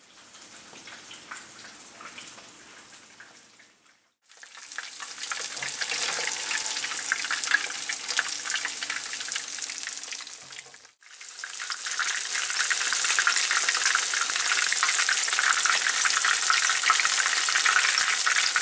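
Panko-breaded fish cakes frying in hot oil in a pan, a steady sizzle. It is quieter for the first few seconds, cuts out briefly twice, and is loudest in the last part.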